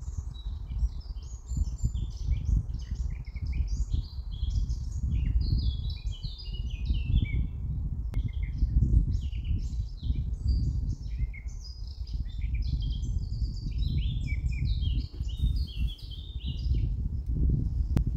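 Dense birdsong, many quick overlapping chirps and twitters, over a steady low rumble. The chirping stops about a second before the end.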